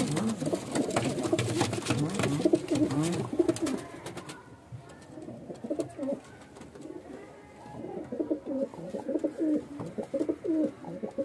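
Andhra pigeons cooing, a male's repeated courtship coos, with a run of sharp clicks and rustling from wings and feet on the boards during the first four seconds. The cooing goes on alone, softer, after that.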